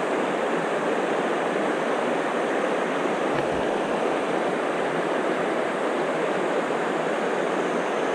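Steady rushing of a shallow river riffle flowing past, even and unbroken.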